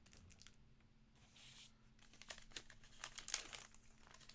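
Faint crinkling and rustling of plastic trading-card packaging as cards and packs are handled, with a run of small clicks and rustles in the second half.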